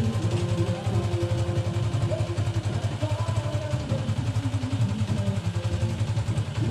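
Motorcycle engine idling steadily with a fast, even pulse.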